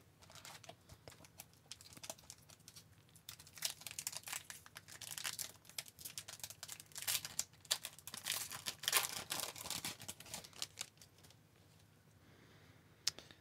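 Hockey card pack wrapper being torn open and crinkled: irregular crackling, busiest around the middle, with one sharp click near the end.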